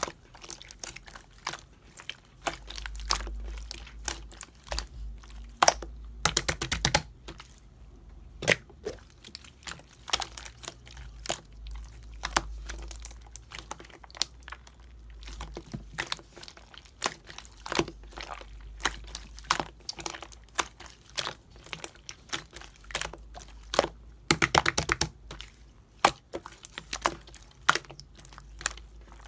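Clear slime mixed with small beads being squeezed and poked by hand, giving sharp crackling clicks and pops, with two fast rattling runs of clicks, one about a quarter of the way in and one near the end.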